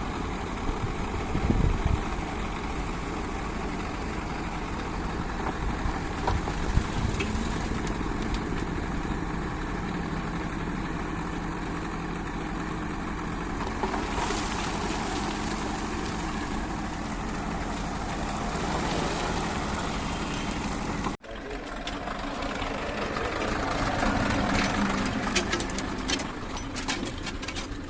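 Diesel engine of working construction machinery running steadily. The sound drops out abruptly about three-quarters through, then comes back as engine noise with a rapid run of rattling clicks near the end.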